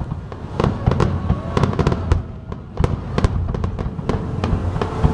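Fireworks going off in a dense barrage: many sharp crackling bangs over a continuous low rumble of booming bursts, easing briefly about halfway through.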